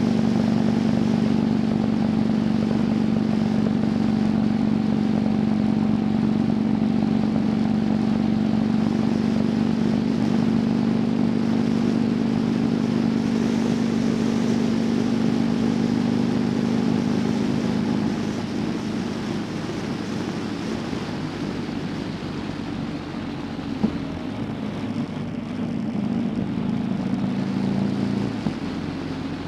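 Motorcycle engine running steadily at cruising speed over wind and road noise. About two-thirds of the way through the engine note drops and quietens, then rises again briefly after a single sharp click and drops once more near the end.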